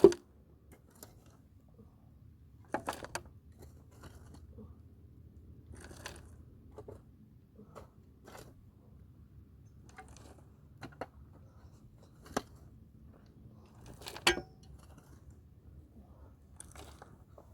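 Scattered knocks, crunches and scrapes from hands at work. The sharpest knock comes right at the start and another loud one about fourteen seconds in, with faint scraping between.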